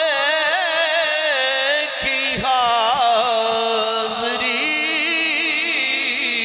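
A man singing a naat solo, unaccompanied, in long ornamented melismatic runs with wavering held notes.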